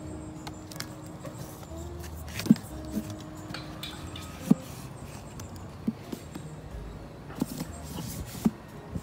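Books being pulled from and pushed back onto the wooden shelves of a little free library box, giving several sharp knocks and thuds, over soft background music with held notes.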